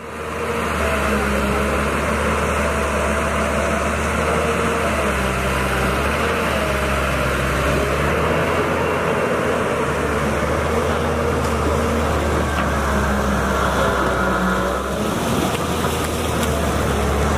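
Caterpillar excavator's diesel engine running steadily, a constant low drone.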